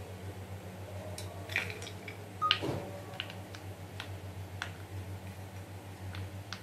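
Small irregular clicks and taps of chopped nuts being picked from a plastic plate and dropped into chocolate shells in a silicone mold, the loudest tap about two and a half seconds in. A steady low hum runs underneath.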